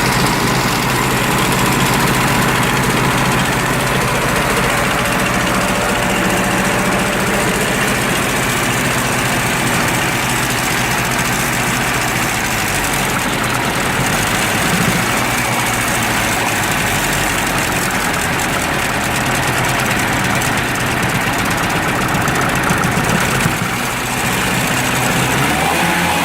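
UAZ engine idling unevenly with a misfire.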